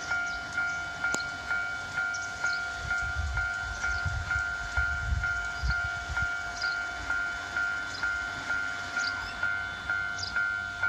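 Japanese level-crossing warning bell dinging steadily, about two dings a second, as a KiHa 107 diesel railcar passes through with a low rumble, heaviest between about three and six seconds in.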